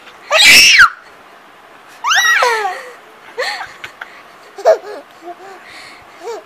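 Baby squealing and giggling: a loud high-pitched squeal near the start, a second squeal falling in pitch about two seconds in, then a few shorter, softer giggles.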